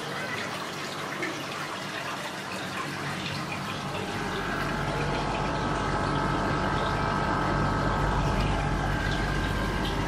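Outdoor unit (condenser) of a National CU-551LJ half-ton mini-split air conditioner running: a steady fan whoosh over compressor hum. About four seconds in it grows louder, with a deeper hum and a steady whine. The owner says its running tone has risen since about 2015.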